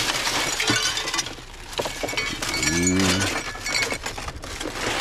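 Steel scrap pieces clinking and rattling as they are picked up and handled from a curbside pile, with metallic ringing, busiest in the first second. A short rising pitched sound comes about three seconds in.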